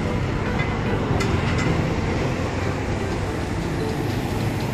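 Steady street traffic noise with a low engine rumble from passing vehicles.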